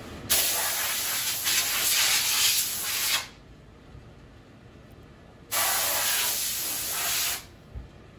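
Compressed-air blow gun hissing in two blasts, about three seconds and then two seconds long, blowing grinding dust off the broken ceramic platter pieces.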